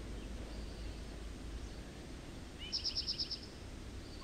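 Outdoor morning ambience: a steady low rumble with faint, scattered bird chirps, and a little past the middle a small bird's quick trill of about eight rapid high notes.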